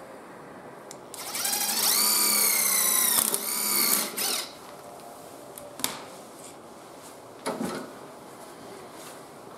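Cordless drill driving a bit into the lawnmower handle to make the hole for a pop rivet. The motor whine rises as it spins up about a second in, runs for about three seconds with a brief stop and restart, then cuts off. A few light clicks and a knock follow.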